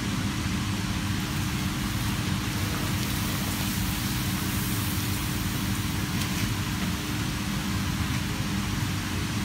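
Pappadom frying in a shallow pan of hot oil, sizzling steadily, over a steady low rumble with a constant hum underneath.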